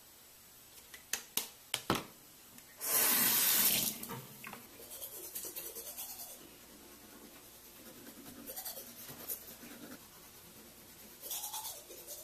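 A few sharp clicks, then a bathroom tap runs briefly about three seconds in, followed by the scrubbing of a toothbrush on teeth. Water runs again briefly near the end.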